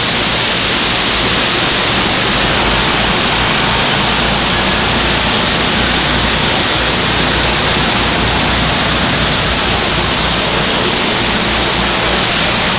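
Water spraying in an automatic tunnel car wash, a loud steady rushing noise with the wash brushes working.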